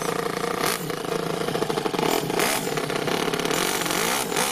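Toyan FS-L200 two-cylinder four-stroke nitro engine with a straight-pipe exhaust running in an RC crawler, a steady buzz with a few short surges in revs as it works under load.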